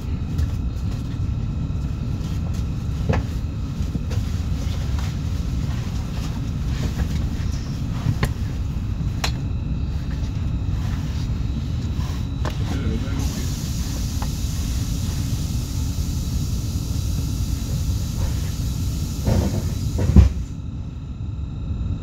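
Inside a Class 72 electric multiple unit on the move: a steady low rumble from the running gear and traction equipment, with a few faint steady tones and scattered clicks from the track. About 13 seconds in a hiss sets in. It cuts off with a loud knock near the end, and the rumble is quieter after it.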